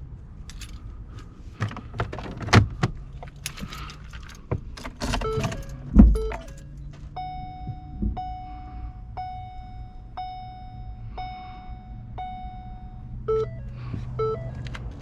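Keys jangling and small clicks and clatter, then a heavy thump about six seconds in. After that comes a 2016 Ford Escape's warning chime, repeating about once a second, and near the end a faster, shorter two-note beep repeating about twice a second.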